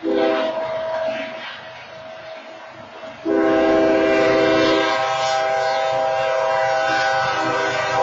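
Diesel locomotive air horn sounding its grade-crossing warning as the train approaches: a short blast of about a second, then after a pause of about two seconds a long sustained blast. The horn plays a steady chord of several notes.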